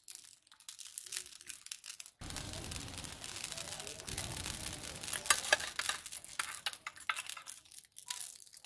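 Fish curry boiling hard in an iron kadai over a wood fire: a steady crackle of bubbles popping, with a fuller rush coming in about two seconds in and a few sharper pops near the middle.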